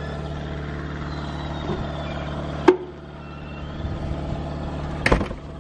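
Steady low mechanical hum, with a sharp knock about halfway through and a second short burst of knocks near the end.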